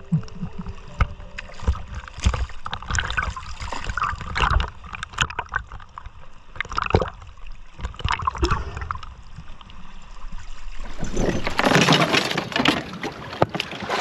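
Water sloshing and gurgling around a camera held at the waterline beside a boat's stern, with irregular knocks and splashes. About three seconds before the end, a louder, steady rushing noise takes over.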